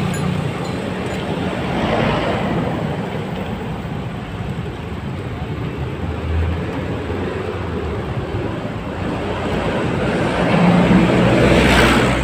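Steady road traffic noise with a low rumble, swelling as vehicles pass about two seconds in and again near the end.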